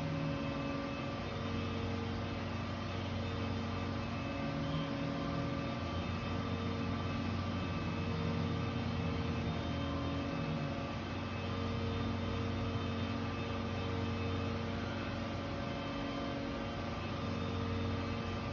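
A steady mechanical drone with a strong low hum and a few fainter steady tones above it, running without a break at an even level.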